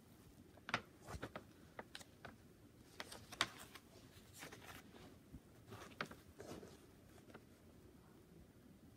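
Faint crinkling and rustling of a rolled diamond-painting canvas being unrolled and handled, with scattered short crackles, a few louder ones about a second in, midway and around six seconds in.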